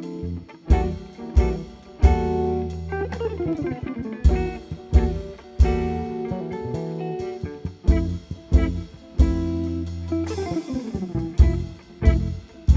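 Live instrumental jazz from a small band: guitar playing over bass and drum kit, with frequent drum strokes and a brief cymbal wash about ten seconds in.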